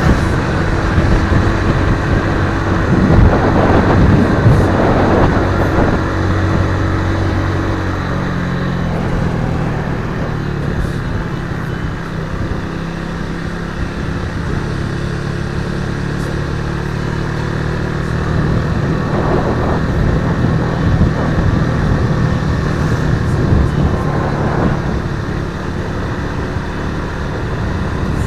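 Suzuki Raider 150 FI motorcycle's single-cylinder engine running at road speed, its note shifting lower about eight seconds in, with wind buffeting the microphone in gusts.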